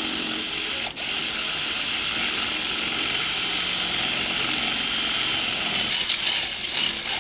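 Electric drilling machine boring a hole into a wall for the bracket's expansion plugs, running steadily. It stops for an instant about a second in, then starts again.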